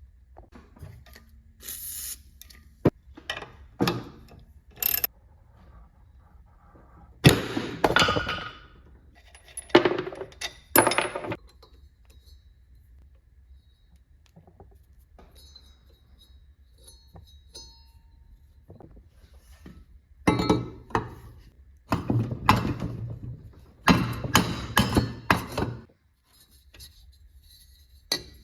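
Metal parts and hand tools clinking, knocking and scraping as an old cast-iron Delta band saw is taken apart, in three bursts of handling separated by quiet pauses.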